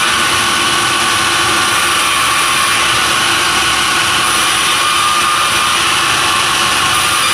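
Sawmill machinery running steadily, a loud even noise with a constant whine, no break or change in pitch.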